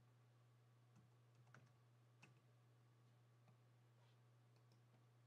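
Near silence with a faint steady low hum, broken by a few faint key clicks: typing on a computer keyboard.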